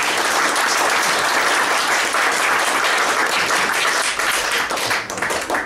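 Audience applauding, a dense steady clapping that thins out near the end and then stops suddenly.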